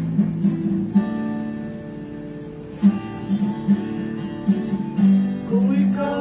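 Acoustic guitar strumming chords in a steady rhythm, the introduction to the opening hymn.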